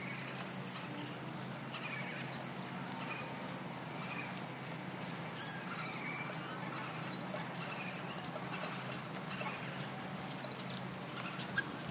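Outdoor nature ambience: a steady hiss with scattered short bird chirps and whistles.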